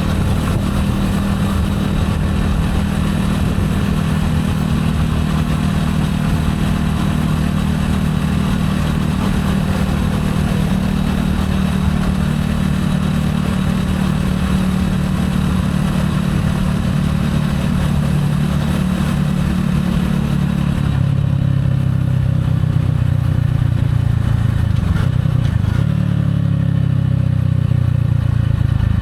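Gilera AC4 motorcycle engine running steadily while riding, with wind noise over the microphone. About two-thirds of the way through the wind noise falls away, and near the end the engine note drops as the bike slows.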